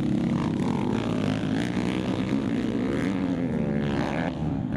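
Several motocross dirt bike engines running on a track, their pitch wavering as the riders work the throttles, with one revving up near the end.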